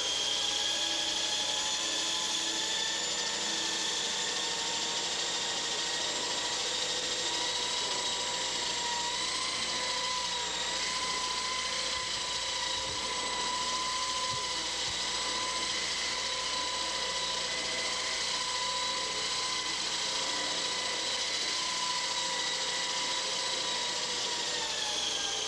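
Skylark EH-1 electric RC helicopter's motor and rotor running with a steady high whine while hovering, the pitch wavering slightly. The whine falls in pitch as it winds down near the end.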